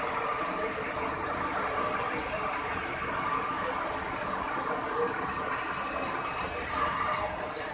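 Abhijat Turboturn 20+ CNC lathe running with a small brass part in its spindle: a steady machine hum with a high hiss, rising briefly twice near the end.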